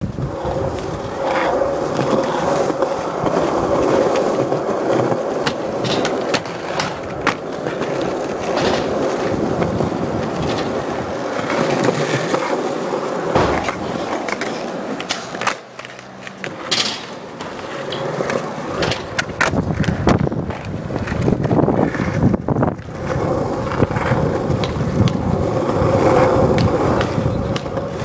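Skateboard wheels rolling on smooth concrete with a steady hum, broken again and again by sharp clacks of the board hitting the ground. The rolling dies down briefly about halfway through, then picks up again.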